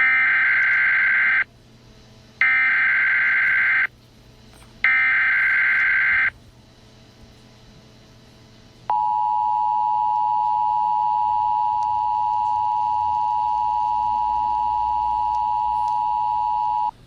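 Emergency Alert System broadcast tones. First come three bursts of SAME header data, each about a second and a half long with about a second between them. After a pause of about two and a half seconds, the steady two-tone attention signal sounds for about eight seconds.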